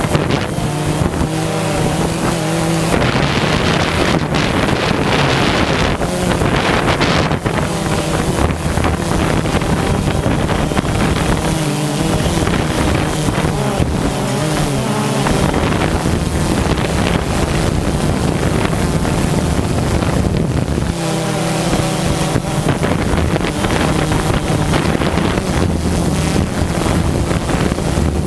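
A steady engine hum under heavy wind noise on the microphone.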